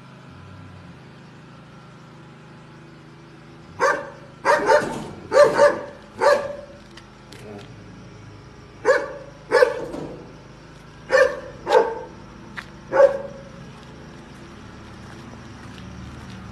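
A dog barking: about ten short, loud barks in twos and threes, starting about four seconds in and stopping near the end.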